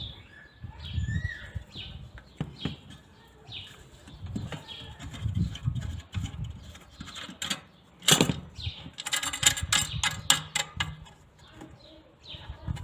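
Handling noise from an unplugged-sounding circular saw being tilted and adjusted by hand: scattered knocks and dull thumps, with a quick run of sharp clicks about eight to ten seconds in. The saw's motor is not running.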